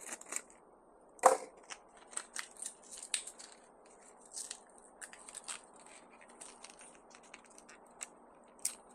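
Plastic hardware package being worked open and handled to get screws out: irregular crinkling and clicking, with one sharper snap about a second in.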